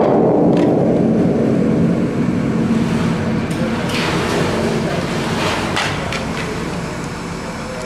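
Water splashing onto concrete paving, gradually dying away, with a few sharp taps, over the steady hum of a truck crane's engine running.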